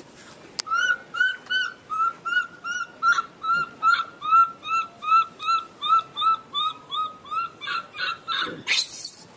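Baby macaque giving a rapid series of short, high-pitched calls, about three a second, then one louder harsh scream near the end. These are the distress calls of a frightened infant.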